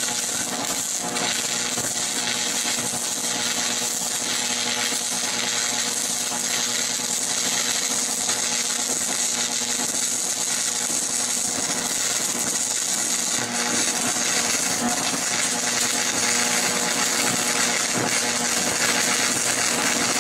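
Stick welding arc of a 6011 electrode burning steadily on a cast iron bell housing: a dense, even crackle and hiss with a faint steady hum beneath it.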